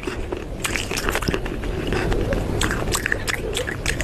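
Biting and chewing of hard baked clay pot pieces, with many quick, irregular sharp crunches.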